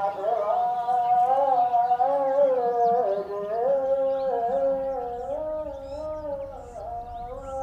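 A solo voice singing one long, slow melismatic line, its pitch stepping and wavering up and down without breaking into words, growing softer over the last few seconds.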